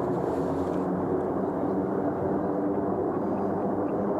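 Piston-engine propeller aircraft running steadily, a continuous hum that holds one pitch.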